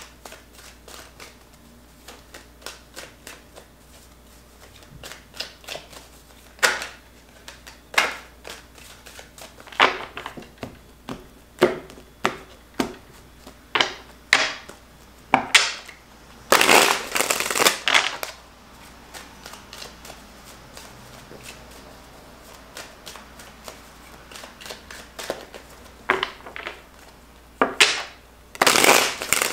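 A deck of tarot cards shuffled by hand: a long run of short, crisp card slaps and flicks, with a longer, denser riffling burst about sixteen seconds in and another near the end as the split deck is riffled together.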